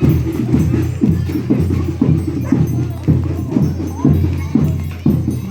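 Folia de Reis band music: drum and tambourine-like percussion beating a steady, regular rhythm over a sustained low tone.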